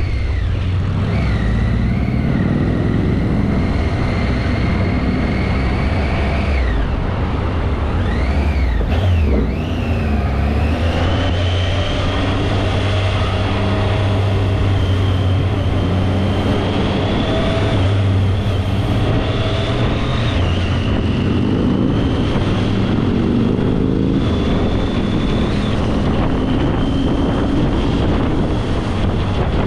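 Triumph Tiger motorcycle's three-cylinder engine running in slow traffic, its pitch rising and falling as the throttle is opened and closed. A thin high whine rises and falls along with it.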